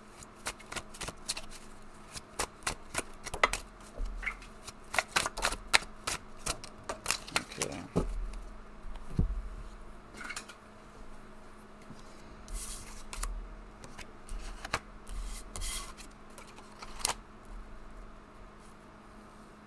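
A tarot deck being shuffled by hand: a quick run of card flicks and snaps for about the first eight seconds. After that come sparser single slaps and slides as cards are drawn and laid out on the table.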